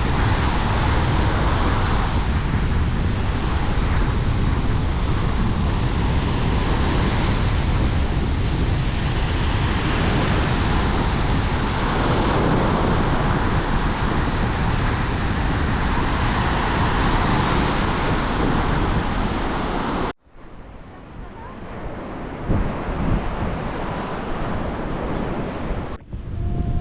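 Wind buffeting the microphone over the wash of surf on a beach, a steady rushing noise. About 20 seconds in it cuts off abruptly to a quieter stretch of lighter wind noise.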